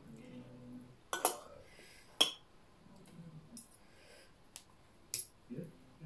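Metal fork and spoon clinking and scraping against ceramic plates during a meal: several sharp separate clinks, the loudest about two seconds in.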